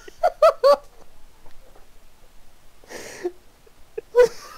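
A person laughing over a voice call: three quick high 'ha's just after the start, a breathy outburst about three seconds in, and another short laugh near the end.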